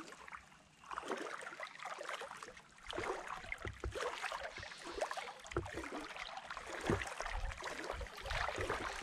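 Legs wading through shallow creek water, sloshing and splashing in uneven surges with each stride, with low thuds of footfalls or wind on the microphone.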